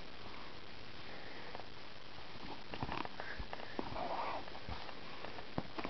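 White kitten's play-fighting: soft, scattered taps and scuffles over a steady hiss, bunched in the second half with a brief rustle among them.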